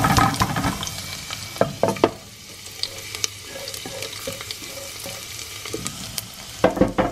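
Chopped garlic tipped into hot oil in a pot, sizzling loudly as it hits and then frying with a steady sizzle. A few sharp knocks come in partway through and again near the end.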